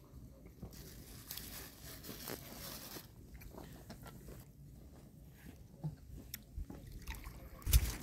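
Plastic bag rustling and crinkling as hands dig into it and pull out lumps, with scattered small clicks and a thump near the end.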